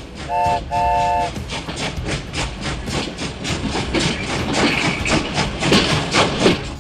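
Train whistle sounding two short chord blasts, followed by the rapid clickety-clack of train wheels running over rail joints.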